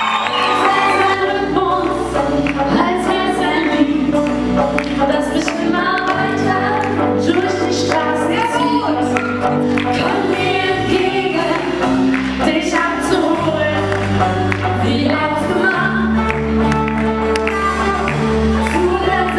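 Live pop band playing a song: two women singing over electric guitars, keyboard and a drum kit keeping a steady beat.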